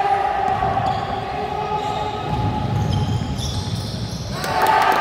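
Basketball being dribbled on a hardwood gym floor, with players' running footsteps, in a large sports hall.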